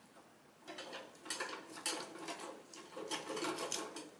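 Serrated bread knife sawing back and forth through the crisp, charred outside of grilled chicken thigh meat stacked on a vertical gyros spit. The scraping strokes start about a second in and come unevenly, some louder than others.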